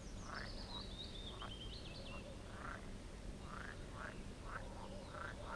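Faint pond-side calls: frogs calling repeatedly, about twice a second through the second half, with a songbird's high trill falling in pitch during the first two seconds.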